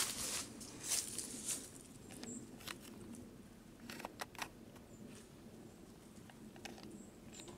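Footsteps on a debris-strewn floor: a couple of steps at the start and about a second in, then scattered faint clicks and ticks as the walker stands and shifts.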